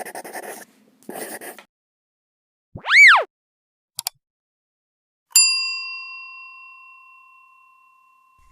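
A string of sound effects: two short swishes, a loud tone sweeping up and back down, a brief click, then a single bell-like ding that rings out and fades over about three seconds.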